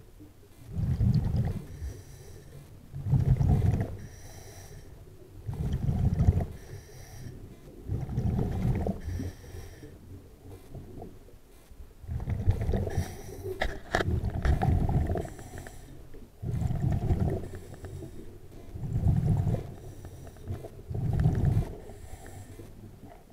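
A diver breathing through a scuba regulator underwater: a low rumble of breath and exhaled bubbles about every two to three seconds, with a fainter hiss between some of them.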